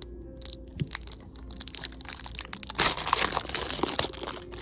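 Packaging being handled and crinkling: a few scattered clicks and rustles at first, then a dense, continuous crinkle from about three seconds in.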